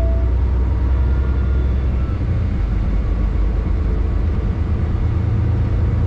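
Inside the cab of a moving semi-truck: the steady low drone of the diesel engine and road noise while cruising.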